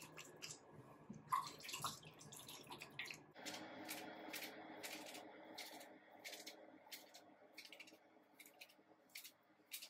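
Wet, gel-coated wavy hair scrunched in the hands, giving short, faint wet squishes about once or twice a second.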